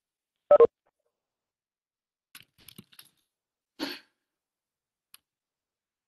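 Video-call audio gated to silence, broken by a short loud sound about half a second in, a few faint clicks around the three-second mark and a brief noisy burst near four seconds.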